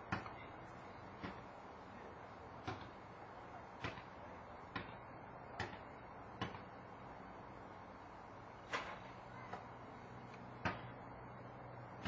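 A series of sharp knocks, about ten of them at uneven spacing, roughly one a second, over a faint steady low hum.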